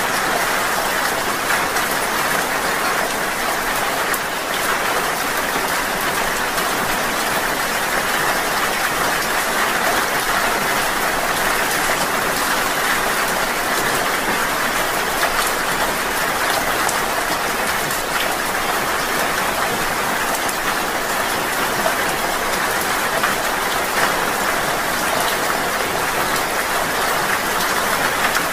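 Steady rain falling: an even, unbroken hiss with small drop ticks scattered through it.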